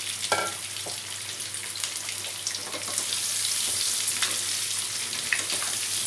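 Spiced boiled potatoes sizzling steadily in hot oil in a nonstick kadhai. A spatula turning them gives a short clink less than half a second in, then scattered small knocks and scrapes.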